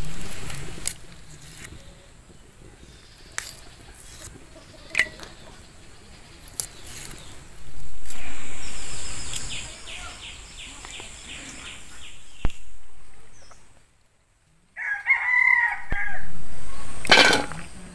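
A rooster crowing, with its loudest call near the end. Sharp little clicks and snaps come throughout as fresh flat beans are broken and cut by hand.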